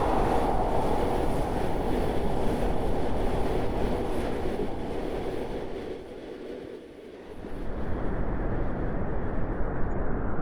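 Train running on rails, a steady low noise that fades down briefly about six seconds in and comes back a second or so later.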